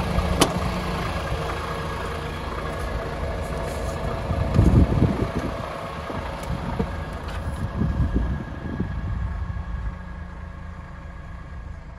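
DAF XF106's Paccar 440 bhp Euro 6 diesel engine idling steadily, with a sharp click about half a second in and knocks and thuds around five and eight seconds in. The engine sounds quieter near the end.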